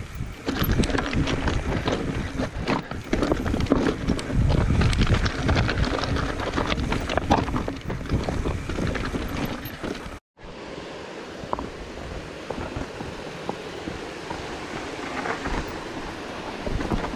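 Mountain bike descending a rocky trail: wind buffeting the microphone, tyres clattering over rocks and the bike rattling with many sharp knocks. About ten seconds in the sound cuts out abruptly and comes back as a quieter steady hiss with a few light clicks.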